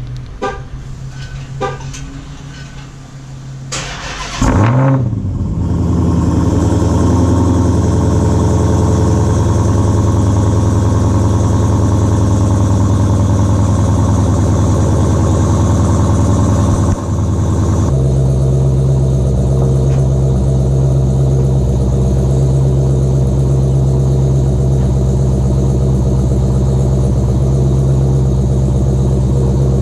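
Dodge Hellcat's supercharged 6.2-litre HEMI V8 cold-starting: a brief crank about four seconds in, a loud flare as it fires, then a steady fast cold idle. About eighteen seconds in the idle note changes and settles into another steady idle.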